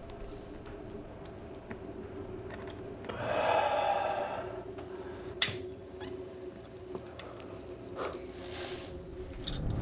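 A man smoking from a small pipe held over a lighter flame, in a small tiled room with a steady low hum behind. A drawn-out pitched sound comes about three seconds in, a single sharp click a little past the middle, and a soft hiss near the end.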